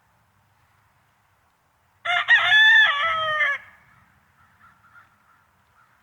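A rooster crowing once, about two seconds in, a single call of about a second and a half that drops in pitch at the end.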